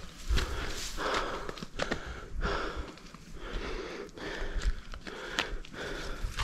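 A hiker breathing hard in quick, regular breaths while climbing, with footsteps.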